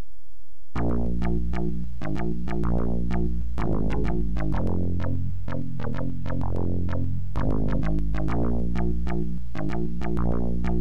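Synthesizer intro music with a steady bass line and quick struck keyboard notes, which fills in fully about a second in after a low held tone.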